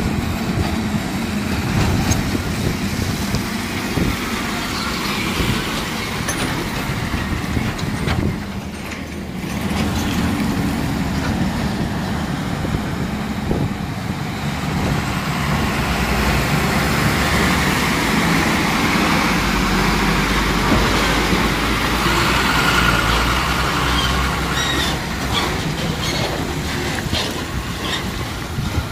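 Heavy diesel trucks passing one after another on a wet road: engines running and tyres hissing on the wet surface. The sound dips briefly about nine seconds in, then grows louder as more trucks come close.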